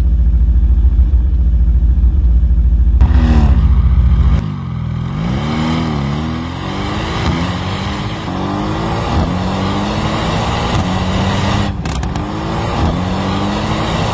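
Mercedes-AMG GT R's twin-turbo 4.0-litre V8 with a deep steady rumble at first, revved up and down about three seconds in, then accelerating hard through a run of upshifts, the pitch climbing and dropping with each gear change.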